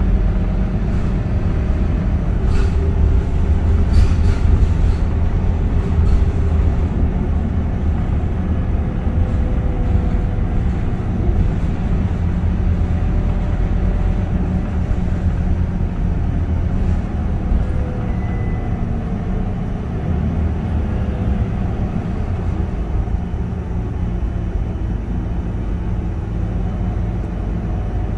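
Scania K230UB city bus's five-cylinder diesel engine running steadily as the bus drives along, with a deep rumble and a note that rises and falls a little. A few short rattles come in the first few seconds.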